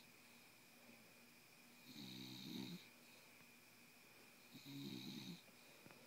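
A bulldog snoring while wide awake: two short snores, about 2 s and 4.6 s in, each under a second long.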